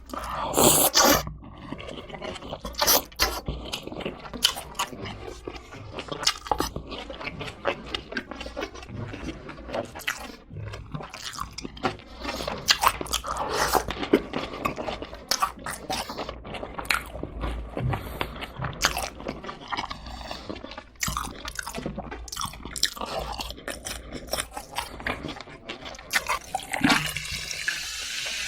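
Close-up crunching and chewing of crispy fried chicken with scallions (pa-dak), with many irregular crunches. A steady hiss comes in near the end.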